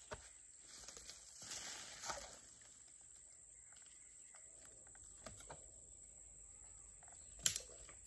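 Faint outdoor ambience: a steady high insect drone under scattered soft rustles and small knocks from someone shifting on dry palm fronds, with one sharper knock near the end.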